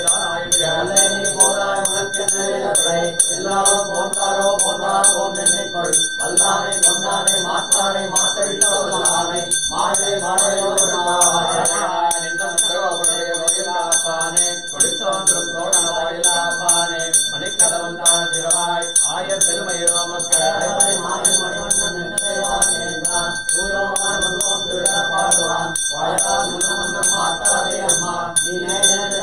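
Brass puja hand bell (ghanta) rung steadily and continuously, with a voice chanting mantras over it in phrases of a few seconds.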